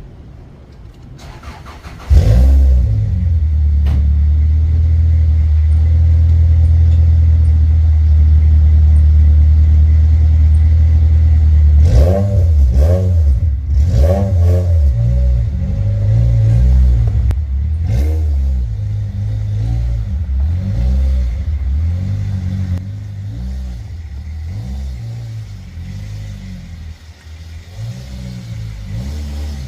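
Freshly rebuilt Toyota 2ZZ-GE four-cylinder engine of a Celica GT-S, coming in suddenly about two seconds in and running at a steady speed for about ten seconds, then revved up and down several times and running on at varying speed.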